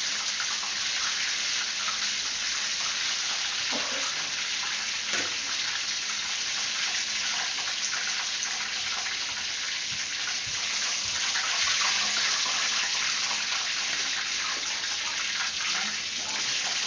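Chicken pieces frying in hot oil in a wok: a steady sizzle, with a few light taps of tongs on the pan as cooked pieces are lifted out.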